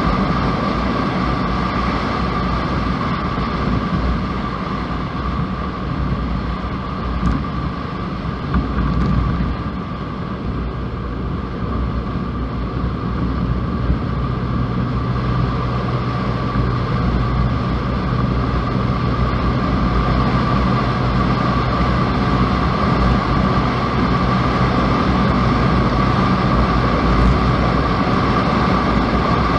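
Truck driving along: a steady rumble of engine and tyres with a constant high whine. A lower engine hum comes in about halfway through and fades near the end.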